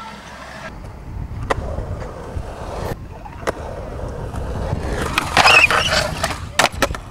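Skateboard wheels rolling on concrete, with sharp clacks of the board a few times. Near the end comes a loud scrape lasting about a second, followed by two sharp clacks.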